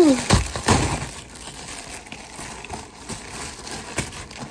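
Packaging crinkling and rustling as a shipping mailer is torn open and a plastic-wrapped item is pulled out. The loudest crackles come in the first second, followed by softer rustling and a few small crackles.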